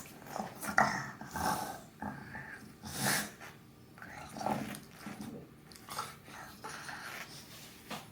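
British bulldog snoring: a run of uneven, noisy breaths at irregular intervals, the loudest about three seconds in.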